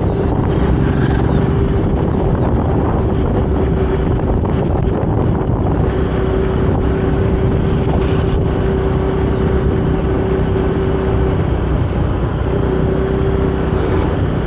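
Riding a motorcycle through traffic: a steady rumble of vehicles and wind buffeting the microphone, with a steady hum that drops out briefly near the end.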